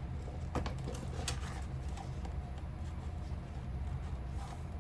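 A few light clicks and rustles from a nylon handbag and measuring tape being handled, over a steady low hum.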